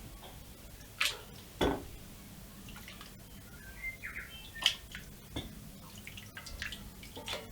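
Anodized aluminium parts being stirred in a bucket of black anodizing dye: quiet liquid swishing and dripping, with four sharp knocks against the container.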